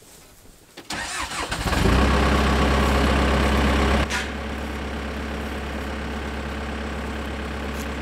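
Backhoe's diesel engine cranked and starting about a second in, running fast for a couple of seconds, then dropping to a steady idle about four seconds in.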